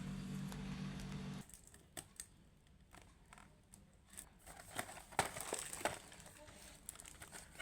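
Plastic sticker packaging being opened by hand: scattered soft crinkles, rustles and small clicks. A low steady hum runs for the first second and a half, then stops.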